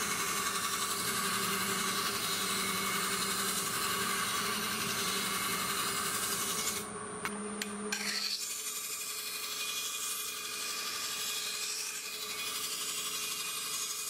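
Homemade 20-inch MDF sanding disc on a wood lathe spinning while wood is pressed against the abrasive: a steady rasping of sanding over a low motor hum. The rasping breaks briefly about seven seconds in, and from then on the hum is fainter.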